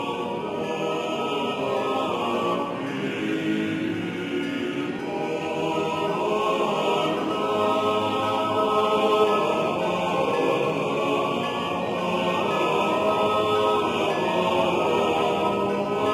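Choir singing slow, sustained chant-like music.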